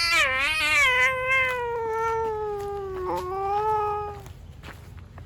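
A cat yowling: one long, wavering howl that slowly falls in pitch, with a brief break about three seconds in before it trails off.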